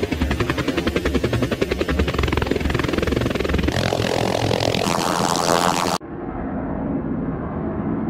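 Helicopter rotor sound effect played in edited variations: a rapid chopping given a lawnmower-like character, which turns higher-pitched and faster a little past the middle. About two seconds before the end it switches abruptly to a dull, muffled version with the treble cut off.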